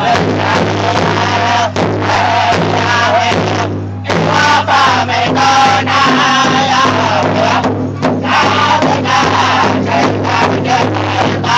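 Pow-wow drum group: several men striking one large shared hide drum with sticks in a steady, even beat while singing together. The singing breaks off briefly about four and again about eight seconds in, with the drum going on.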